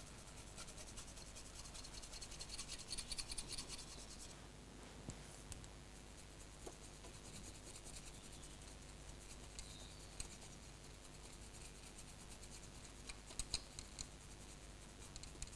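Paintbrush bristles stroking and dabbing oil paint over a model locomotive's body: faint, quick scratchy brushing, busiest about two to four seconds in and again near the end.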